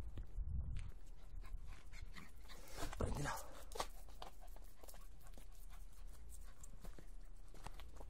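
A puppy giving a short cry about three seconds in, among faint scuffs and clicks, with a low rumble near the start.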